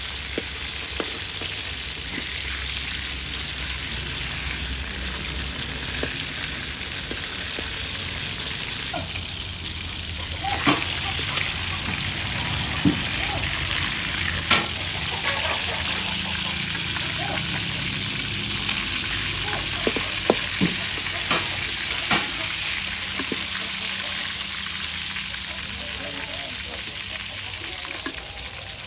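Fish steaks sizzling steadily in oil in a metal pan, with a metal spoon clinking and scraping against the pan several times as the pieces are turned and lifted.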